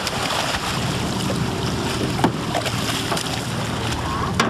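Boat engine idling with wind on the microphone and water splashing at the hull beside a hooked shark. Two sharp knocks, one a little over two seconds in and one near the end.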